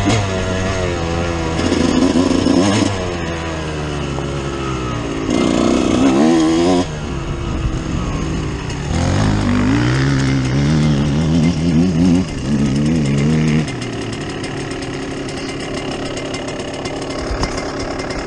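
2005 Kawasaki KX125 two-stroke single-cylinder engine being ridden, revving up and backing off again and again. The pitch climbs and drops in quick steps with hard bursts of throttle about two, six and ten to thirteen seconds in, then it runs steadier and lower over the last few seconds.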